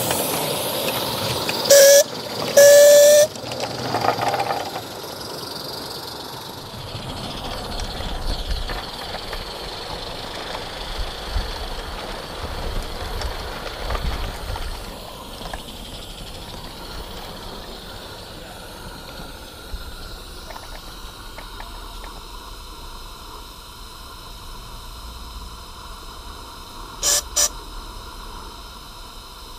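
A 16mm-scale live-steam garden-railway locomotive hissing steam as it passes, giving two short whistle blasts about two and three seconds in. Then comes the steady rattle of the train's wheels running on the track, with two quick whistle toots near the end.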